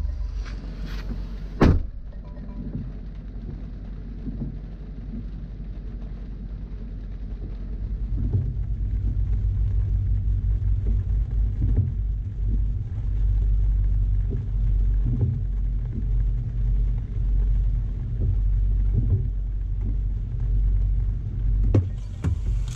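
Cabin sound of a parked, idling Range Rover Sport with no one inside: a door thud about two seconds in, then a steady low hum that grows louder about eight seconds in, with light rain and the windscreen wipers sweeping. Another door knock comes near the end.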